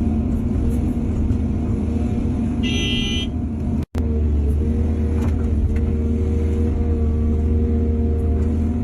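Heavy diesel engine running steadily under a low rumble. About three seconds in there is a brief high-pitched beep, and just before four seconds the sound cuts out for an instant.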